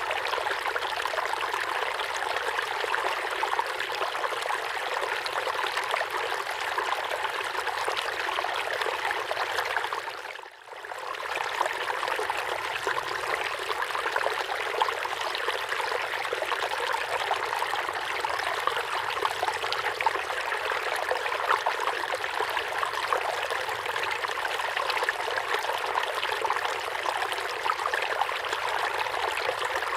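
River water flowing and splashing over rocks, a steady rushing babble. The sound dips briefly about ten seconds in, then carries on unchanged.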